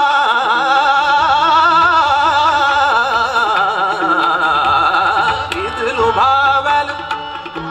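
Male Hindustani classical vocalist singing fast, wavering taan runs over steady accompanying instruments. A rising phrase comes about six seconds in, and the music fades near the end.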